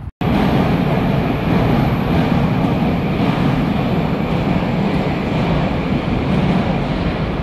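Moscow Metro train running at speed, heard from inside the carriage: a loud, steady rumble of wheels on the rails.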